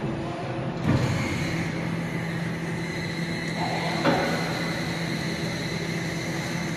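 Forging manipulator running with a steady hum and a thin high whine as its tong arm tilts a gripped steel workpiece downward. Two metallic clunks, about a second in and about four seconds in.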